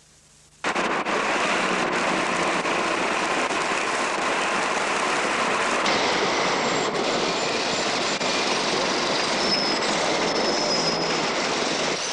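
Busy street traffic: a steady, dense rush of car, taxi and bus noise that starts abruptly about half a second in, with a few faint high squeals later on.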